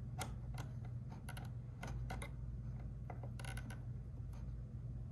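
Light, irregular clicks and taps of hands handling clear plastic alignment gauge plates on an RC truck, over a steady low hum.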